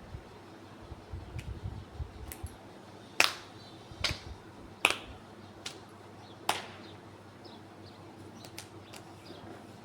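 Five sharp cracks a little under a second apart: finger knuckles popping as each finger is pulled in turn during a hand massage.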